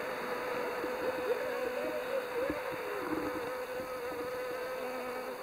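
Western honey bee buzzing in flight, a steady hum whose pitch wavers slightly.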